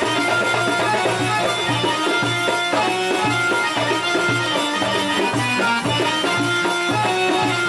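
Egyptian folk music for a whirling tanoura dance, with a steady low drum beat under a sustained melody.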